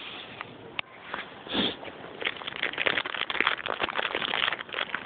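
Dense, irregular crackling and crunching that starts about two seconds in, after a click and a short breathy puff: a horse munching hard cough drops, with the crinkle of their wrappers.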